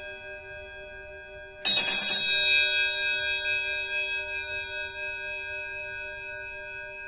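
Vatican bell car horn, an electric horn whose coil-driven piston strikes two brass bell bowls, sounding alone: a single bell strike about two seconds in that rings on with a long, slowly fading echo, over the fading ring of an earlier strike.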